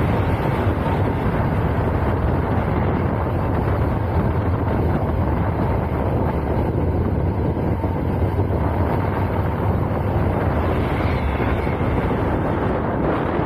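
Wind noise buffeting the microphone on a moving motorcycle at road speed, with the engine's low, steady running underneath. The sound stays even throughout, with no gear changes or revving standing out.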